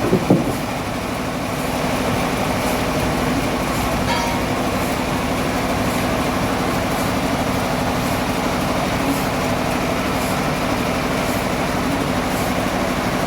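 Sawmill machinery running steadily, a continuous mechanical drone with a low hum; a couple of short knocks right at the start.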